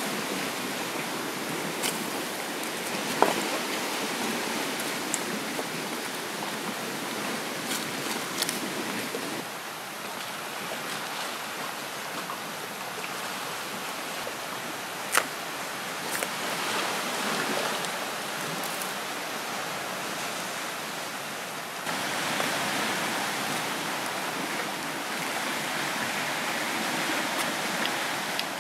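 A steady rush of water, with a few sharp cracks as a charred bamboo cooking tube is pried and split open by hand.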